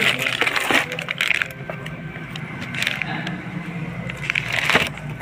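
Clatter and scraping of metal parts and tools being handled, in two bursts, one in the first second or so and another near the end, over a steady low hum.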